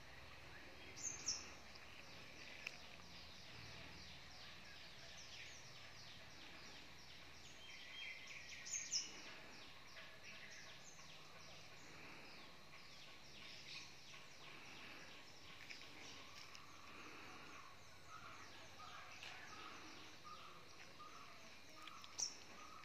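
Quiet outdoor ambience of birds chirping and calling, with a few sharper, louder high calls about a second in, around nine seconds and near the end. Over the last few seconds one bird repeats a single mid-pitched note about twice a second.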